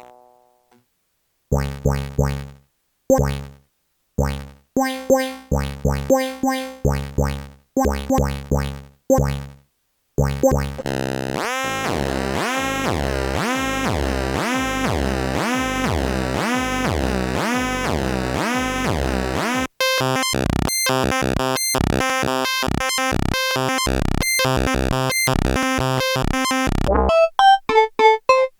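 Dreadbox Typhon monophonic analog synthesizer playing factory preset patches. After a short silence come short plucky notes that each die away quickly. These are followed by a continuous sequence with a repeating filter sweep, then a steady pulsing pattern of held notes. Near the end come quick, bright staccato notes.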